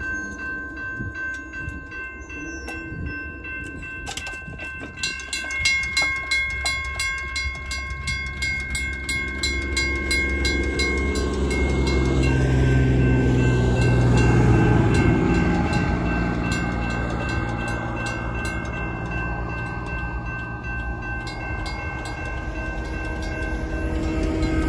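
Railroad crossing bells ringing: a WCH mechanical bell striking rapidly and evenly together with the ringing tone of a General Signals Type 2 electronic bell. A locomotive air horn sounds from the approaching train in the middle, and the train's rumble grows louder toward the end.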